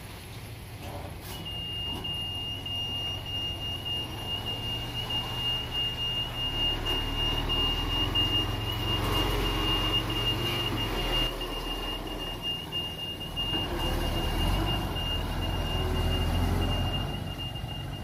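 UD diesel dump truck running under load, its engine rumble growing louder partway through, with a continuous high-pitched electronic alarm tone starting about a second in and holding steady.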